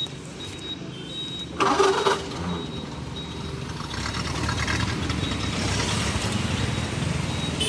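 A 1928 Ford Model A's four-cylinder engine starting, with a sudden loud burst about a second and a half in, then running steadily with a low rumble that grows stronger partway through.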